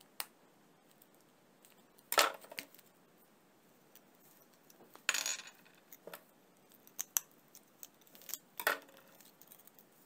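Plastic housing of an LED light bulb being pried apart with a metal tool: sharp plastic clicks and short cracking snaps. The loudest crack comes about two seconds in, others around five and near nine seconds, with lighter clicks between.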